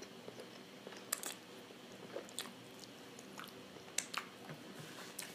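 A person chewing a mouthful of creamy pasta close to the microphone: soft, wet mouth sounds broken by a few sharp clicks.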